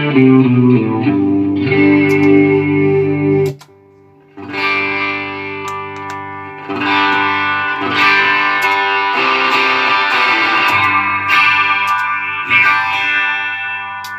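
Electric guitar played through a Line 6 Helix multi-effects processor as a sound check of the repaired unit: sustained chords with effects. The sound breaks off for a moment about three and a half seconds in, then resumes.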